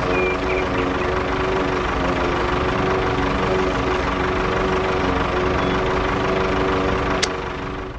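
Small motor of a toy tractor running steadily, spinning its circular saw disc, a hum with a steady whine. A sharp click comes about seven seconds in, and the sound fades over the last second.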